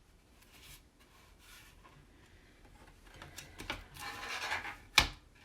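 Hands sliding and smoothing an adhesive silkscreen transfer on a chalkboard tag: a few faint rustles, a longer rubbing rustle late on, then one sharp tap near the end.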